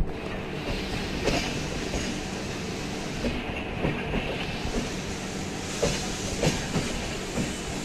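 Passenger coach wheels rolling slowly over rail joints and points, heard from aboard the train: irregular clicks and knocks over a steady rumble, with a faint steady low hum underneath.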